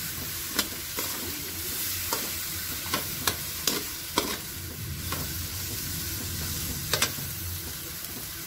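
Shredded cabbage, carrots and meat sizzling in a stainless steel wok while a metal utensil stirs and turns them. Sharp clinks of the utensil against the wok come about once a second in the first half, with a double clink about seven seconds in.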